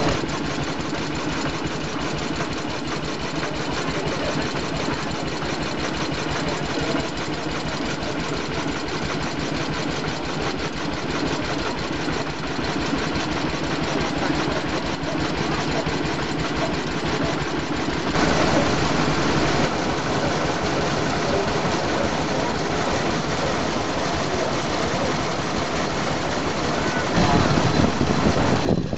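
Small vintage stationary engines running steadily with a fast, even beat. The sound turns hissier about two-thirds through and grows louder just before the end.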